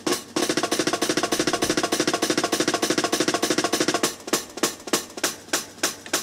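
A breakbeat drum loop chopped into one-beat splices, played from a Make Noise Morphogene through the QPAS filter's high-pass outputs. Randomly chosen splices are retriggered fast into a stuttering drum roll. About four seconds in, the repeats thin out to separate drum hits.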